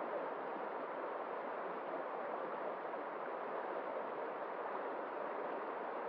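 Shallow, fast-flowing stream rushing over rocks, a steady, even wash of water.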